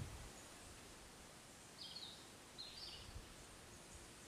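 Faint bird chirps over a quiet outdoor background: one short chirp about two seconds in and a double chirp about a second later.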